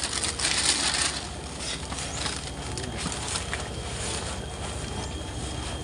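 Chopped green forage rustling and crunching as it is trodden down inside a plastic drum, packing it tight for silage. The rustle is loudest in the first second, then settles to a lower steady noise with a few faint ticks.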